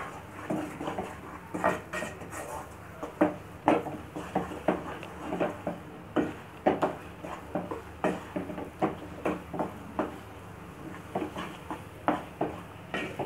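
Wooden spatula scraping and knocking against a nonstick pan as thick milk-powder dough is stirred and pressed, with irregular knocks about once or twice a second. The dough is being cooked down into mawa.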